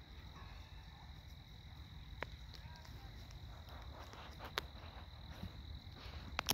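Faint outdoor ambience: a steady low rumble with a thin, steady high tone over it, and a few faint clicks about two, four and a half, and six seconds in.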